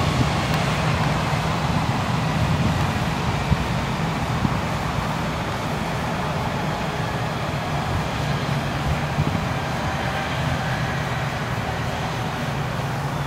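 Boeing 757-200's twin jet engines running in reverse thrust on the landing rollout: a steady, loud noise with a strong low hum that eases slightly near the end.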